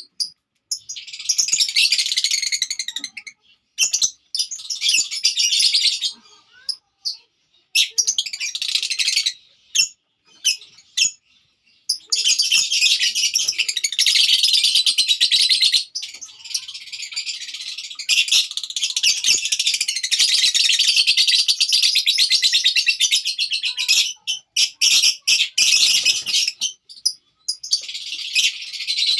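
Lovebirds chattering in rapid, shrill, high-pitched bursts. The calling comes in several bouts of a few seconds each with short pauses between them, and the longest bout runs through the middle.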